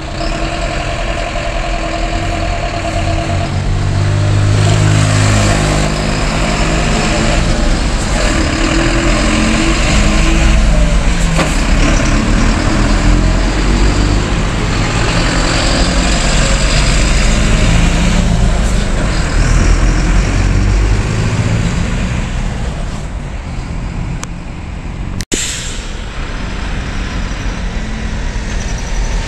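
Diesel city bus engine running loud as the bus pulls away. Its pitch climbs and drops several times in the first half, as it works up through the gears, over a heavy low rumble. The sound breaks off abruptly near the end, and another vehicle passage follows.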